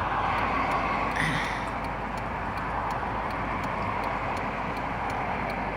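Steady road and engine noise inside a car's cabin, with a faint, even ticking about three times a second.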